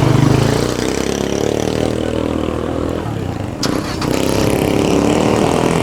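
An engine running steadily, with a sharp click about three and a half seconds in.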